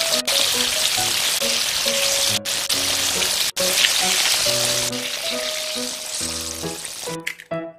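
Breaded tomato slices deep-frying in hot oil: a steady sizzle, broken by a few split-second gaps, that stops about seven seconds in.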